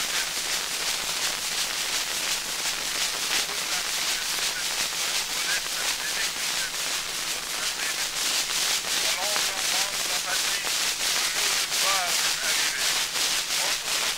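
Surface noise of an 1889 Edison wax-cylinder phonograph recording: a loud steady hiss with a regular click about three times a second. Faint traces of a voice come through under the noise in the second half.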